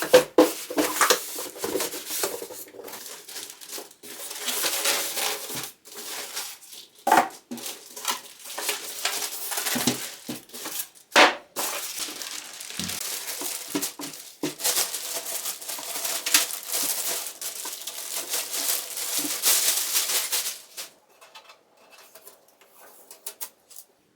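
Cardboard box and plastic packing of a PC case being opened and handled, with stretches of rustling and crinkling and many sharp knocks and taps. It quietens to a few faint clicks near the end.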